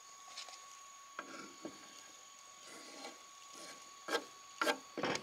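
Camp cooking gear handled over a pot: soft scrapes and rubs, then a few sharper knocks and scrapes about four seconds in.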